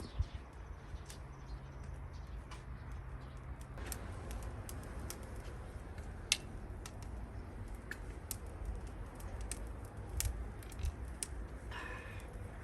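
Campfire crackling: sporadic sharp pops and snaps from burning wood over a low steady rumble. A short bird call comes near the end.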